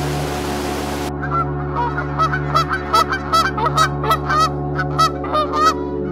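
Domestic geese honking: a rapid run of short, pitched honks, several a second, that starts about a second in and stops just before the end. Before the honking starts, an even rush of running water cuts off abruptly.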